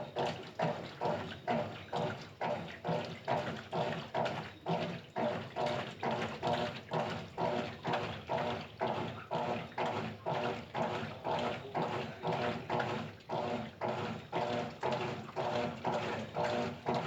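GE 15 kg washing machine in its wash cycle, sloshing water back and forth in even strokes about three a second.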